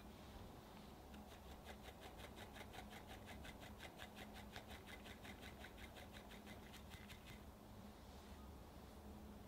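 Small mesh sieve rattling in a quick, even rhythm of light ticks, about six a second, as cocoa powder is sifted through it. It is faint, starts about a second in and stops a couple of seconds before the end.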